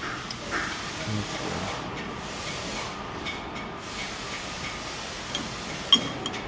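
Steady hissing shop background noise with a faint steady whine, light metal clinks from tools and brake-lathe fittings being handled, and one sharp metallic click about six seconds in.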